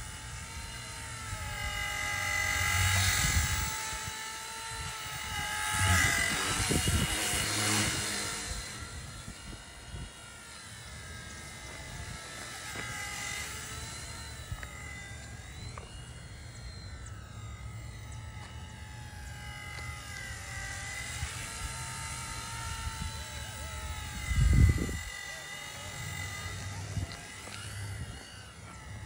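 Electric motor and rotor of an E129 micro RC helicopter whining steadily while it hovers low, the whine drifting up and down in pitch with the throttle. Two louder noisy swells a few seconds in, and a single sudden thump near the end.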